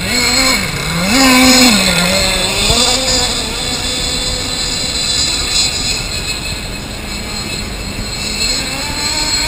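Small two-stroke engine of a radio-controlled boat running, its pitch swinging up and down with the throttle in the first few seconds, then holding steadier and a little quieter before climbing again near the end.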